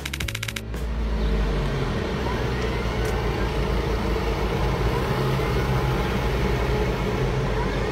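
Steady low rumble of a car idling, heard from inside the cabin while it waits at a level crossing. A brief rapid ticking comes at the very start.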